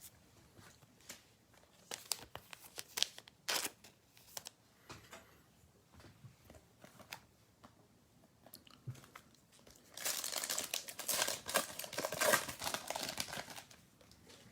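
A trading-card pack wrapper crinkling and tearing open for about three seconds near the end, after a few light clicks and rustles of cards being handled.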